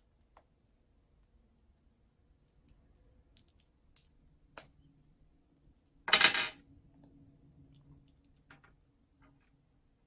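Plastic bead toys handled by Amazon parrots and knocking on a glass tabletop: light clicks now and then, and about six seconds in a loud rattle lasting about half a second.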